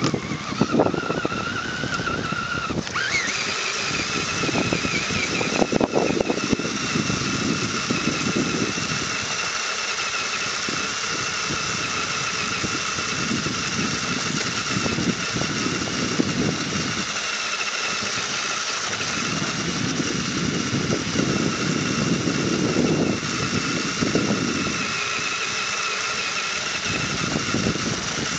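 Electric motor and geared transmission of an HPI RC rock crawler whining as it drives, rising in pitch over the first few seconds and then holding steady. Under the whine runs a shifting rumble with occasional knocks from the chassis and tyres going over grass, heard close up from a camera riding on the truck.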